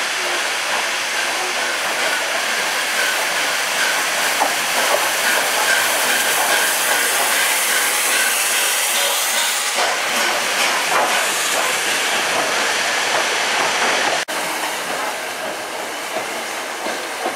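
LNER A4 Pacific steam locomotive moving slowly at close range: a loud, steady hiss of escaping steam, with scattered clicks of wheels over the rails. The sound breaks off abruptly near the end and gives way to quieter train noise.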